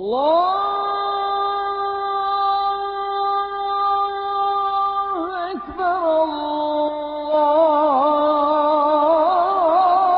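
A muezzin chanting the adhan (Islamic call to prayer), solo and unaccompanied. He glides up into the word "Allah" and holds it on one long steady note, then from about five seconds in winds it through wavering ornamental turns.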